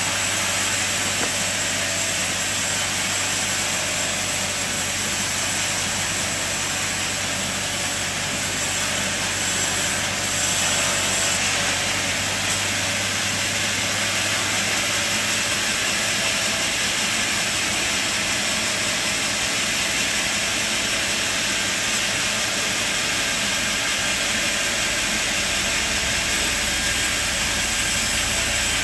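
Sawmill machine running steadily: a constant low motor hum under a continuous hiss.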